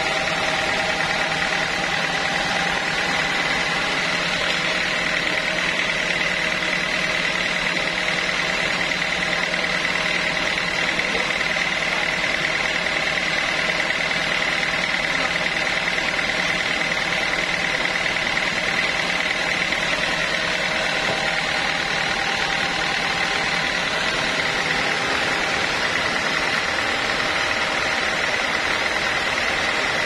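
Band sawmill running with no cut under way: its drive and free-running blade make a constant machine hum with a steady high whine that holds one pitch throughout.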